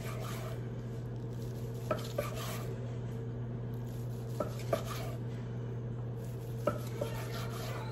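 Long slicing knife sawing through the crusty bark of a smoked brisket, with a light tap of the blade on a wooden cutting board at the end of each slice, about every two and a half seconds. A steady low hum runs underneath.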